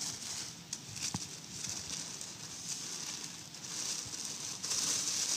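Tissue paper rustling and crinkling as a wine bottle is rolled up in it by hand, growing louder near the end.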